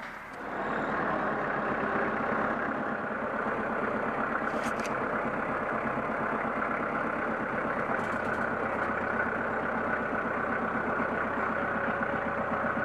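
Tractor engine running steadily, growing louder about a second in.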